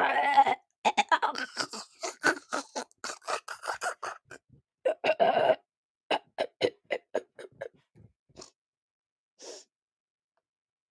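A girl clearing her throat over and over: a voiced rasp, then a quick run of short rasping hacks, another voiced rasp about five seconds in, and then shorter, fainter hacks that thin out.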